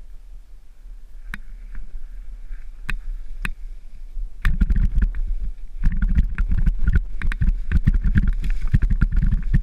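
Mountain bike riding down a rough dirt-and-gravel downhill trail: wind rumbling on the camera microphone, with tyre crunch and sharp knocks and rattles from the bike. Quieter for the first few seconds, then from about four and a half seconds in the knocks and rattling come thick and fast over rougher ground.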